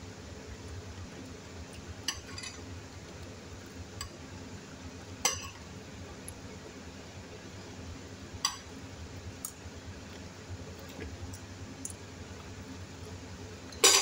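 Metal spoon clinking against a ceramic plate: a handful of separate sharp clinks, the loudest near the end, over a steady low hum.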